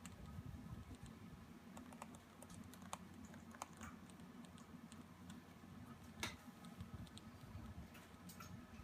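Faint, irregular clicks and taps over a low steady hum, with one sharper click about six seconds in.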